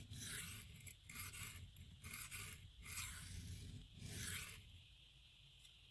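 A knife's 9Cr18MoV steel edge being stroked across a 320-grit diamond plate: five dry scraping passes, each about half a second long, that stop a little after four seconds in. The coarse plate is grinding steel off to reshape a rounded-over tip.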